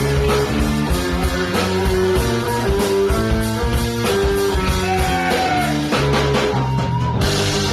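Funk band playing live: electric guitars over bass and a steady drum-kit beat, with a brighter cymbal wash coming in near the end.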